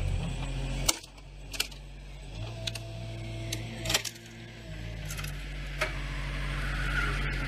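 Compact wheel loader's engine running steadily while its log grapple handles a heavy log, with several sharp clanks and knocks from the grapple and log.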